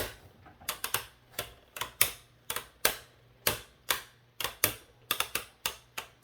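Two spinning Beyblade tops, one of them 3D-printed, knocking against each other in a battle stadium. It is an irregular run of sharp plastic clicks, often in quick clusters of two or three.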